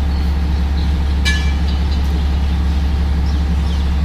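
Heavy diesel truck engine idling with a steady low rumble. A brief high-pitched toot sounds about a second in.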